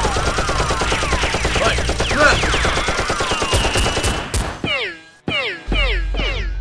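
Dubbed-in automatic gunfire sound effect: a fast, continuous rattle of shots with falling whistling tones over it. About four and a half seconds in it stops, and music with a repeated falling note takes over.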